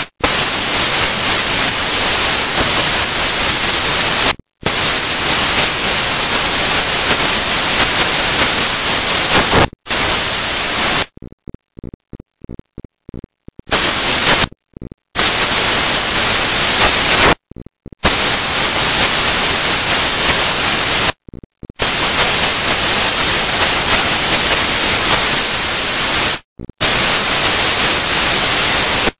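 Loud, steady static hiss like white noise. It cuts out abruptly to silence several times, with a stretch of rapid stuttering dropouts near the middle.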